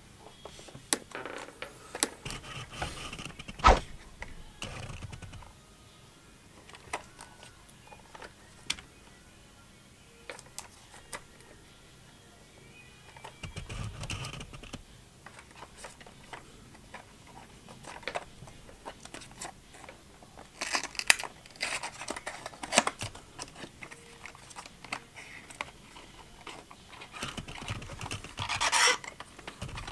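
Small cardboard box of a diecast model car being handled and opened by hand: scattered light taps and clicks of the card, with louder rustling and scraping about halfway through and again near the end as the flap is opened.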